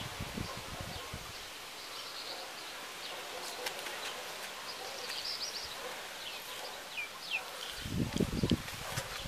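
Outdoor background noise with faint, short bird chirps, and a short burst of low rumbling noise about eight seconds in.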